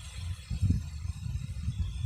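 Low, uneven rumbling buffeting on the microphone, surging strongly about half a second in, over a faint hiss.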